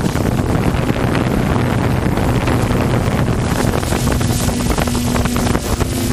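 Open-class jet ski engines (1100–1500cc personal watercraft) running with a steady drone, and wind buffeting the microphone.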